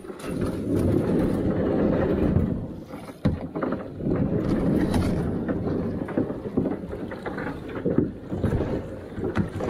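Rumbling wind and water noise on the microphone of a camera riding on a plastic sit-in kayak drifting down a fast, muddy river; the rumble drops briefly about three seconds in.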